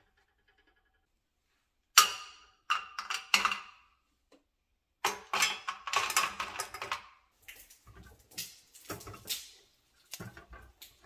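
Caramels dropped by the handful into a small stainless steel saucepan, clattering against the metal in quick runs of knocks, the loudest strike about two seconds in. Near the end come softer knocks and scrapes as a silicone spatula stirs them in the pan.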